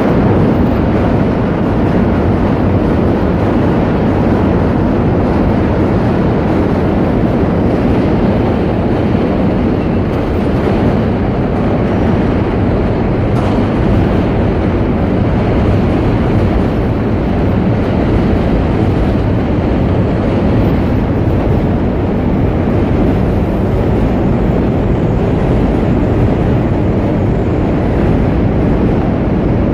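Loud, steady low rumbling noise that does not break or change.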